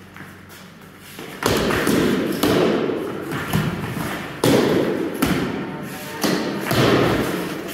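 Training swords striking shields and bodies in sword-and-shield sparring: dull thuds. After about a second and a half of little sound, half a dozen blows land at irregular intervals.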